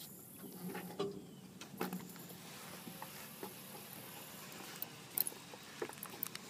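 Faint, scattered knocks and taps of someone moving about on the boat, a few at a time, over a quiet outdoor background.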